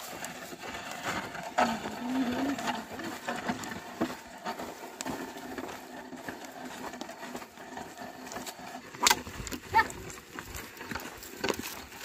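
Pair of oxen pulling a wooden plough through dry, stony soil: hoofsteps and the plough scraping the dirt, with a few sharp knocks about nine and ten seconds in.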